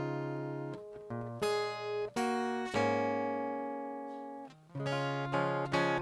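Steel-string acoustic guitar strumming single chords, each left to ring and fade before the next, with quicker strums near the end.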